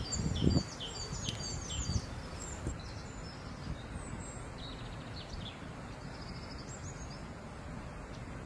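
A small burrowing rodent scrabbling in loose soil, with a few dull scrapes in the first second or two as it digs and kicks dirt. Over this a bird chirps quickly and repeatedly for about two seconds, then only now and then.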